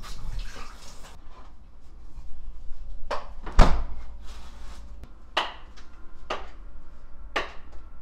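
About five sharp knocks of tableware being set down on a table, the loudest about three and a half seconds in.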